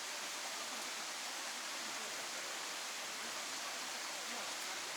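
Steady rushing of a mountain stream flowing past, an even, unbroken wash of water noise.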